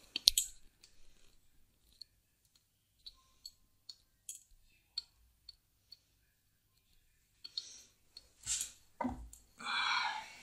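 Light handling clicks and taps: two sharp knocks at the start, then scattered small clicks, and a louder rustling clatter in the last few seconds.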